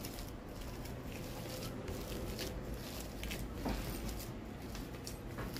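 A bare hand kneading and mixing a mashed-potato cutlet mixture in a steel plate: irregular soft squishing with light scrapes of the mash against the metal.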